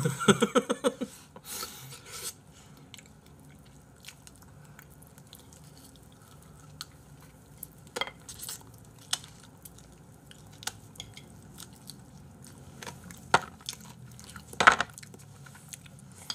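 A short laugh, then fried chicken being chewed and crunched close to the microphone, with a few sharp clicks and knocks from handling plates about eight seconds in and again near thirteen and fifteen seconds.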